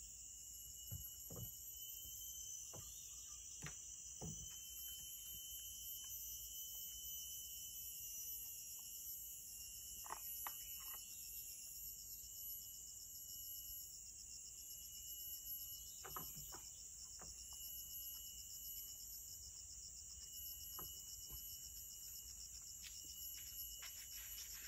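Steady chorus of rainforest insects, several high steady shrill tones layered together, with a few scattered soft knocks and rustles from things being handled.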